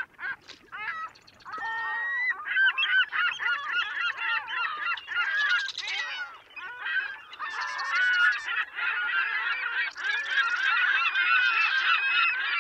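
Gulls calling: many squawks and cries overlapping, sparse at first and a dense chorus from about two seconds in.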